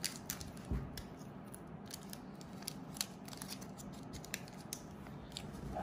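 Hands handling small plastic candy-kit packets: quiet, scattered light clicks and crinkles at irregular intervals.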